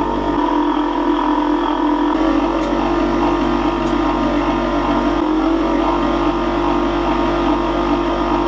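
Motor-driven three-roll sheet-metal bending machine running steadily through its gears and chain, rolling a thin perforated stainless-steel strip into a ring. The machine gives a steady hum with fixed tones.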